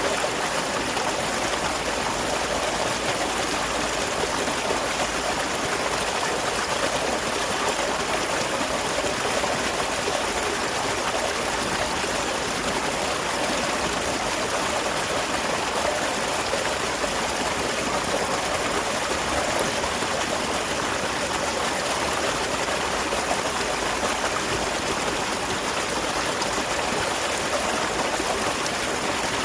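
Small waterfall by a rice field, water pouring and splashing in a steady rush with no breaks.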